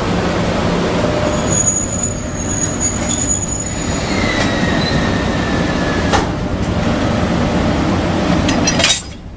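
An EF81 electric locomotive creeping up to a rake of sleeper coaches to couple on, its machinery running steadily with a low hum. A thin wheel squeal comes in midway for about two seconds, and near the end a sharp clank as the couplers meet, after which the noise drops suddenly.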